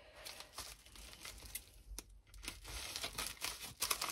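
Plastic packaging crinkling and crackling as it is handled, with a run of sharper crackles near the end.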